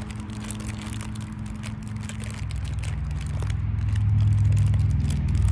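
A motor vehicle's engine hum, low and steady, growing louder over the second half as it approaches, with light crinkling of a foil wrapper being handled.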